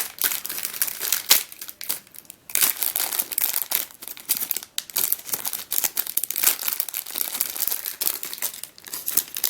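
Sealed puzzle packaging being handled and worked open by hand: irregular crinkling and crackling, with a short lull about two seconds in.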